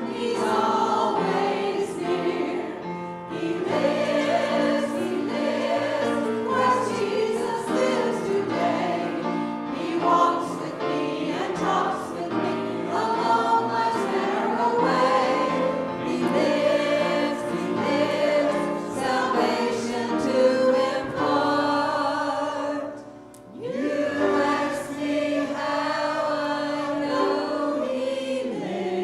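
A church worship choir of mostly women and one man singing a gospel song through microphones, with a short break about three quarters of the way through before the next phrase.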